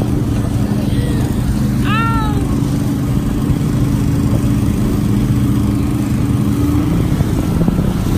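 Small boat's outboard motor running steadily under way, with the rush of wind and water. About two seconds in, a short high-pitched call rises and falls once over it.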